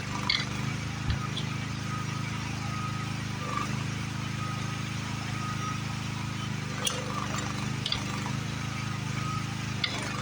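The engine of a small demolition machine running steadily, with a faint on-and-off whine and a few sharp knocks and clinks.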